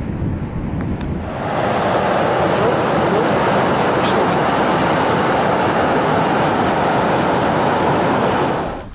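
Steam vent (fumarole) hissing hard: a loud, steady rush of escaping steam that comes in about a second in and cuts off abruptly near the end. Before it there is a low rumble.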